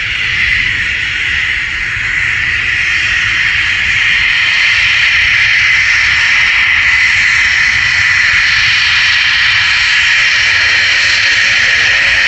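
Embraer Phenom 300's twin Pratt & Whitney PW535E turbofans running at taxi power: a steady, loud jet whine and hiss over a low rumble, growing a little louder about four seconds in.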